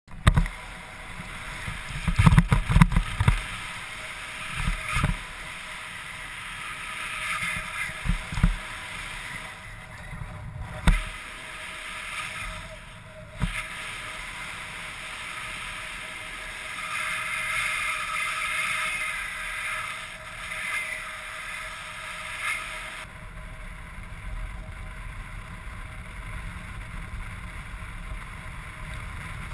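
Wind rushing over the paraglider pilot's action-camera microphone during the launch run and flight. Heavy low buffeting thumps come in the first few seconds, then a steady rush with a hiss that rises and falls.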